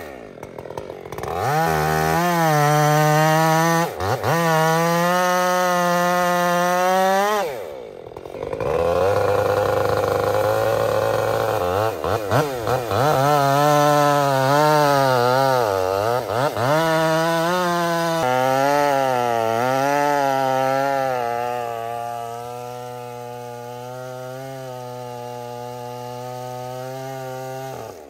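Two-stroke chainsaw cutting timber, its engine pitch repeatedly rising and dipping as the chain loads up in the cut, with brief drops in throttle. In the last several seconds it runs more quietly at a lower, steady pitch.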